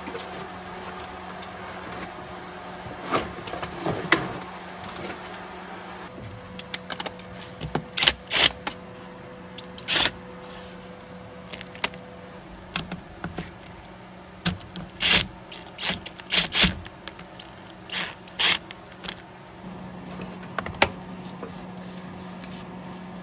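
Hands working on a Chevy Suburban's engine: irregular clicks, knocks and rattles of plastic and metal parts as intake pieces are unclipped and moved, over a steady low hum.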